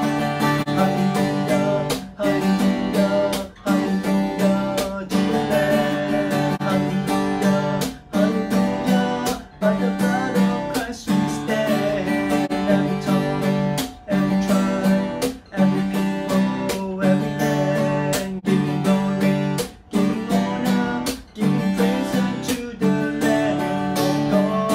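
Acoustic guitar strummed in a steady rhythm, the chords changing about every second and a half, while a man sings a worship song over it.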